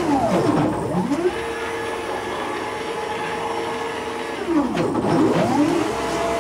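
Stepper motors of a CNC router (1600 oz-in) running a warm-up cycle at rapid traverse: a steady multi-tone whine. Twice, once at the start and again about two-thirds of the way through, the pitch sweeps down and back up as the axes slow to a stop and speed up again.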